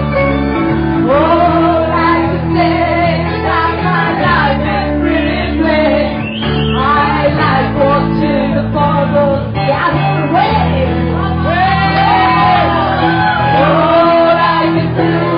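Woman singing live into a microphone over band accompaniment, her melody gliding and wavering through long held notes above the band's steady chords.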